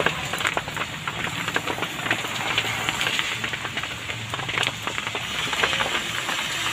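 Rain falling on wet pavement: a steady hiss peppered with many individual drop hits.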